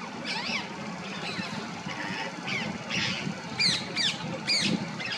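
Rose-ringed parakeets calling: high, sharp screeching calls that sweep in pitch, a few scattered early on and then a quick run of three or four louder ones about three and a half seconds in. A steady low rumble sits underneath.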